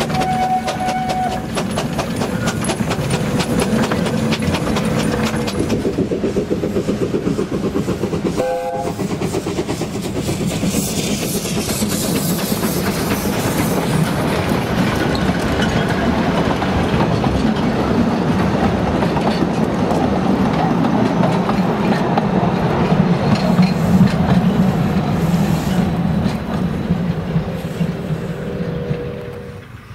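Narrow-gauge steam locomotives passing at close range. The 1899 Krauss engine Sragi No.1 runs by with its train, a dense rapid clatter of exhaust beats and wheels on the rails. After a cut about nine seconds in, a second locomotive passes with a strong hiss of steam from its open cylinder drain cocks, then its train rumbles past.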